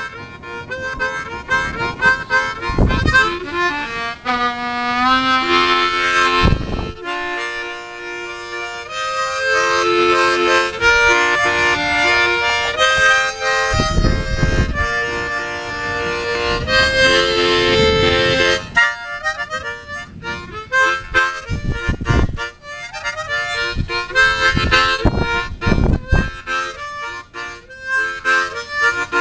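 B-flat diatonic harmonica played freely by ear, chords and held notes, with a run of notes climbing step by step about five seconds in. A few low thumps turn up among the playing.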